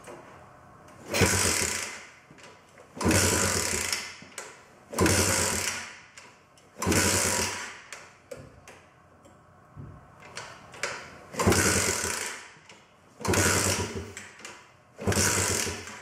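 80cc four-stroke pocket bike engine being kick-started. Seven kicks, each about a second long, spin the engine over, with a pause of a few seconds in the middle. It fails to fire despite fuel having been dropped into the cylinder through the spark plug hole.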